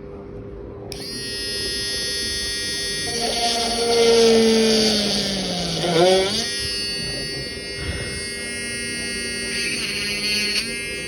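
Small electric hand drill running with a steady high whine, switched on about a second in. Its pitch sags while the bit bores a hole into a resin rakhi, between about three and six seconds in, and again briefly near the end.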